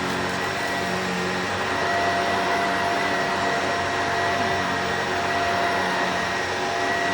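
Vacuum cleaner running steadily, its motor whine holding one pitch over the rush of the suction.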